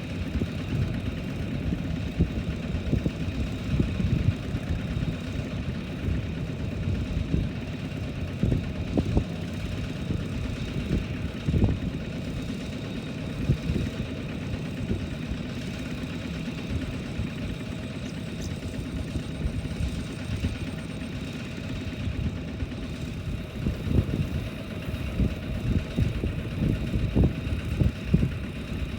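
Tractor diesel engine running steadily, with irregular low thumps through it.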